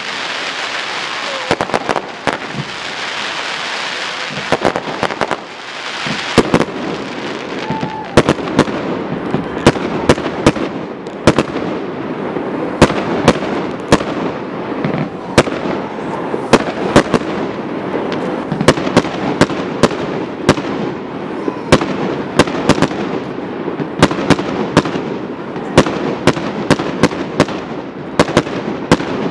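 Aerial fireworks display: shells bursting in a long run of sharp bangs over a continuous hissing wash. The bangs come thicker and faster from about six seconds in, often two or three a second.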